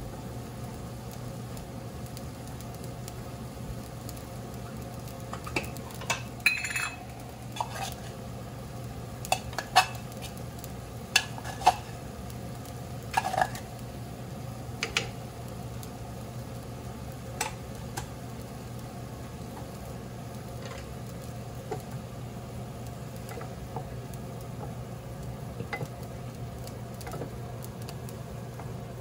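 Cauliflower simmering and sizzling in a skillet, over a steady low hum. Scattered knocks, clinks and scrapes of wooden spoons and utensils against the pan, most of them in the first half, with stirring near the end.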